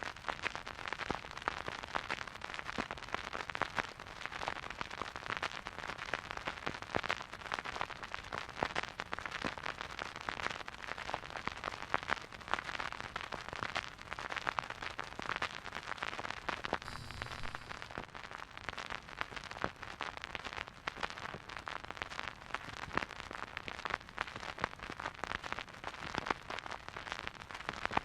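Vinyl record surface noise from a silent groove playing on a record player: a steady, dense crackle of small clicks and pops. A brief low hum shows about two-thirds of the way through.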